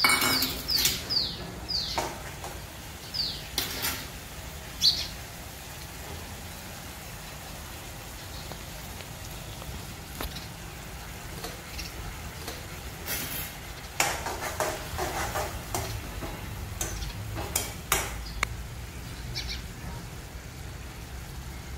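Spiced gourd-and-cashew mixture cooking in a steel kadai with a low steady sizzle, and clusters of metal clinks and scrapes against the pan about two-thirds of the way through. A bird chirps a quick run of falling whistles at the start and twice more a few seconds in.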